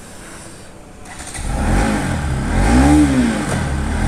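Bajaj Pulsar NS200's single-cylinder engine starting up about a second in, then revved once, its pitch rising and falling about three seconds in.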